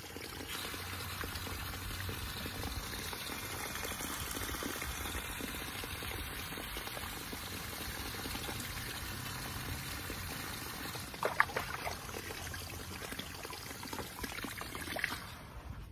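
Garden hose spray nozzle running water into a shallow inflatable paddling pool: a steady rush and splash of water, which cuts off near the end. A few sharp clicks about two-thirds of the way through.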